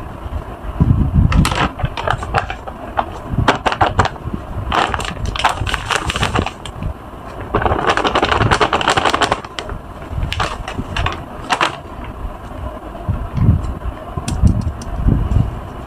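Plastic bag of laundry powder detergent crinkling in bursts as it is handled, with a longer rustling stretch about halfway through as the powder is poured out onto sponges in a plastic tub.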